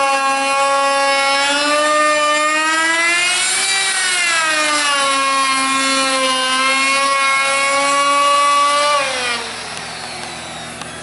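Single-speed D-handle router cutting an edge profile along a wooden board: a high motor whine that sags in pitch as the bit bites, rises briefly near the middle, sags again, then winds down when it is switched off about nine seconds in.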